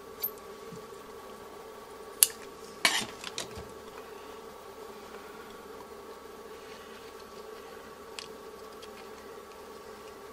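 Small scissors snipping heat-shrink tubing: a sharp click about two seconds in and a short cluster of clicks just after, over a steady low hum.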